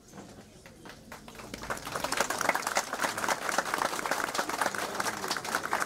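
Crowd applauding. It starts faintly about a second in, swells over the next second and then carries on steadily.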